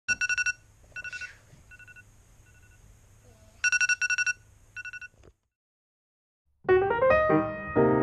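iPod touch alarm ringing: groups of rapid high beeps, loud, then fainter, then loud again, until it stops about five seconds in. After a short silence, piano music begins near the end.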